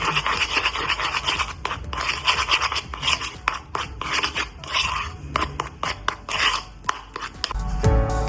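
Repeated rasping, scraping strokes in irregular bursts, with scattered clicks. Music comes in near the end.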